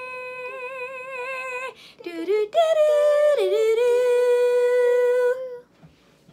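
A voice sings or hums two long held notes with vibrato, broken by a few short lower notes around two seconds in. The second long note starts a little higher, dips briefly and settles.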